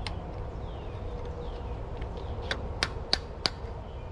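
Hammer blows on the steel bucket pin of an excavator, driving it into place: one strike, then four quick, even taps about a third of a second apart in the second half, over a steady low rumble.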